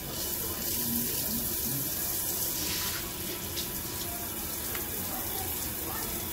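Water running steadily at a self-serve dog-wash station, a continuous rush of water into a tiled tub.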